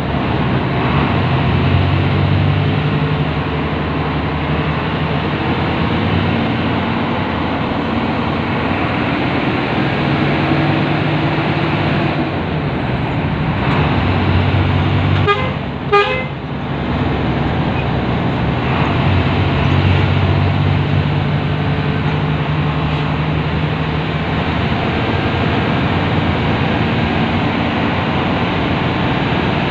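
Harapan Jaya intercity bus heard from inside the cabin: its engine drones steadily, pitch rising and falling several times as it speeds up and shifts. About halfway through comes one short, loud blast of the bus horn.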